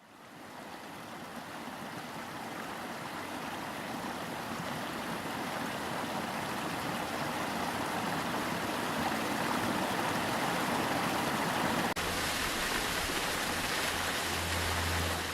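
Meltwater stream rushing steadily, fading in at the start. About twelve seconds in, a low rumble joins underneath.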